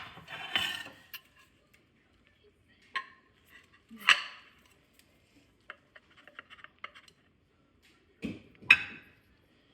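Utensils clinking and knocking against dishes while food is served: a few sharp clinks spaced a few seconds apart, with a quick run of light taps in between.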